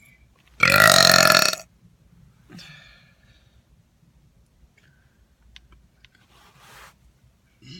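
A person's loud burp, lasting about a second, shortly after the start.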